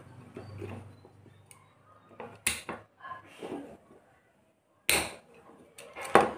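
White plastic two-way switches being handled and set down on a wooden board: three sharp clicks, a second or two apart, with faint rustling of wires between them.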